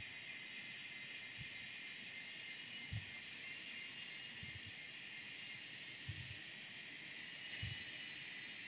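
A steady chorus of forest insects, a constant high-pitched whine over a hiss. It is broken by a few soft low thumps.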